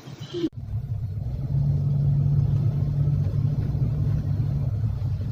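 Steady low rumble of a car in motion, heard from inside the cabin; it starts abruptly about half a second in.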